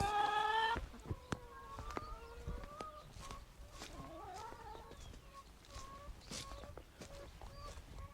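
Domestic hens clucking: one longer call in the first second, then many short, soft clucks. A few light taps sound among them.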